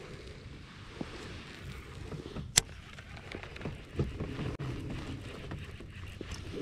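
Small knocks and handling noises in a fishing kayak over a low rumble, with one sharp click about two and a half seconds in.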